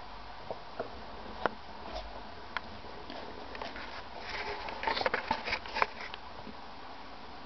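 Crackly rustling of wood-shaving bedding as a dwarf hamster scurries through it, densest about four to six seconds in. It is preceded by a few separate clicks and taps.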